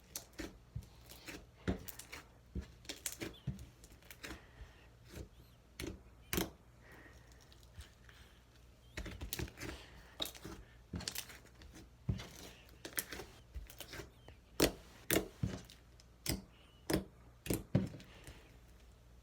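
Slime being squished and played with, giving irregular sticky pops and clicks a few per second, with short pauses between them.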